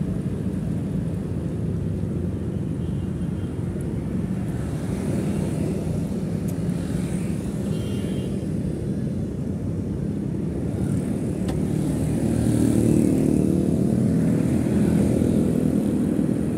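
Motorcycle on the move in city traffic: steady engine and road noise, growing a little louder about twelve seconds in.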